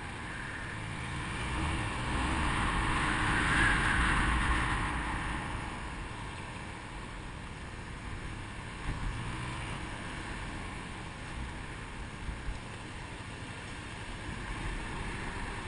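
Motorcycle on the move, heard through a helmet camera: engine running with road and wind noise. It swells for a few seconds about two seconds in, then settles to a lower steady rumble with a few short knocks.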